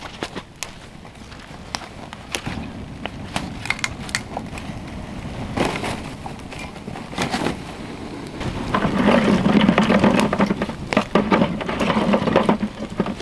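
Campfire of cardboard and kindling catching, crackling with many sharp pops. From about nine seconds in a louder stretch of rustling and crunching, as sticks are handled and feet shift in dry leaves near the fire.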